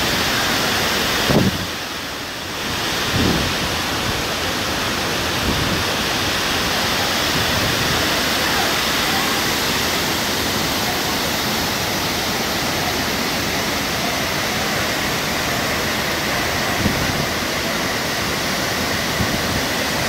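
Waterfall pouring into its plunge pool: a steady, dense rush of falling water that dips briefly about two seconds in, with a few faint low bumps.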